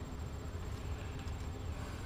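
Steady low hum with a faint even hiss and a thin, steady high-pitched whine: background room noise with no distinct event.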